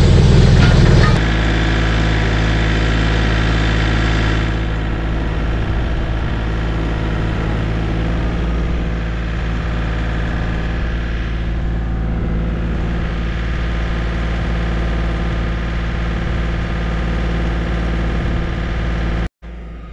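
John Deere compact tractor's diesel engine running just after being started, loudest for about the first second inside the closed garage, then running steadily as the tractor is driven. The sound cuts off abruptly near the end.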